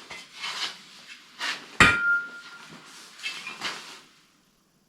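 Metal being handled: a few short scraping, rustling sounds and one sharp metallic clank a little under two seconds in that rings briefly, then quiet.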